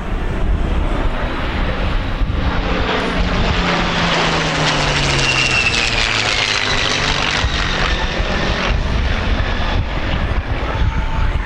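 An A-10 Thunderbolt II's twin turbofan jet engines and a piston-engine propeller warbird flying past together. The roar builds to a peak midway, and a high whine and a low drone both drop in pitch as the aircraft go by.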